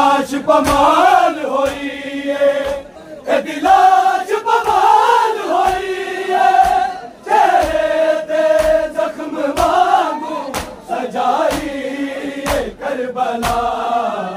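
A noha sung as a lament by a lead male voice, with the crowd chanting along. Under it runs a steady beat of matam: open hands slapping bare chests.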